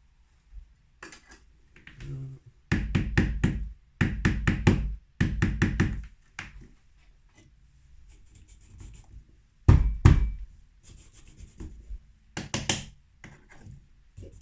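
Runs of rapid knocks, four or five quick taps at a time and repeated several times, with one heavier knock about ten seconds in: espresso prep gear being tapped on the counter to settle the fresh coffee grounds before tamping.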